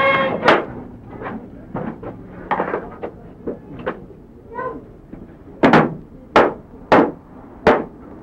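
A wooden door being banged on and rattled at its handle: a dozen or so irregular sharp knocks, the heaviest in the second half.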